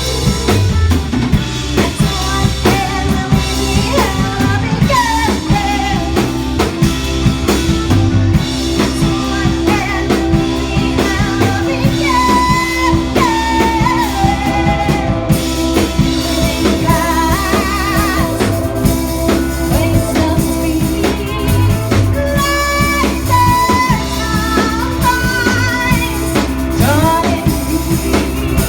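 A live band playing: a drum kit keeps a busy beat under guitar and a singing voice, with notes that slide in pitch.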